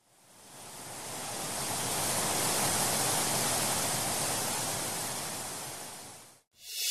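Waterfall rushing, a steady hiss of falling water that fades in and then fades out again; music begins right at the end.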